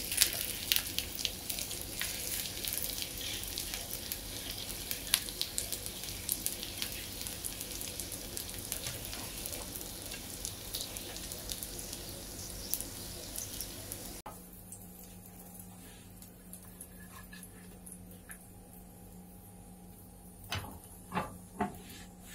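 Egg frying in hot oil in a non-stick frying pan, a steady sizzle with scattered pops and crackles. About 14 seconds in the sizzle cuts off abruptly, leaving a faint steady hum and a few short knocks near the end.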